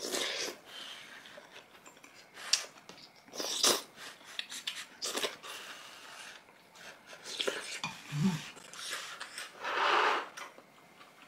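Slurping and chewing of hot, spicy beef and radish soup (sogogi-muguk) from a spoon, with short sharp breaths drawn over the too-hot mouthfuls, coming every second or two.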